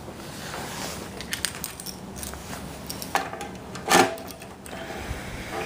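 Light metallic clicks and rattles of handling, with a sharp knock about four seconds in.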